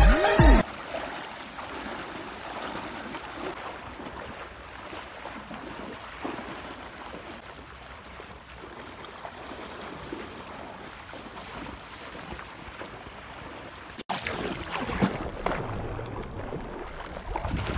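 Water splashing and sloshing as people wade through shallow muddy water, a steady wash that turns louder and more uneven after a cut about fourteen seconds in. Background music cuts off in the first second.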